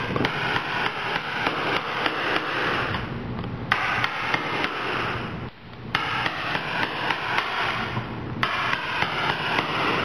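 Rapid, even hammering, about five blows a second, in runs broken by brief pauses every two to four seconds.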